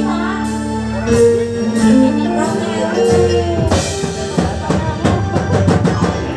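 Live band playing through a PA: electric guitars, bass, keyboard and drum kit, with a voice on the microphone. Held notes carry the first half, then the drums pick up a fast, busy beat about three and a half seconds in.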